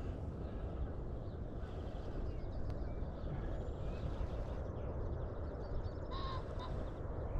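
Wind noise on the microphone, with distant waterfowl calling over it and one clearer honking call about six seconds in.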